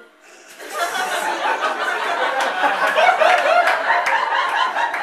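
Audience laughing, the laughter building about a second in and holding as a dense crowd of laughs.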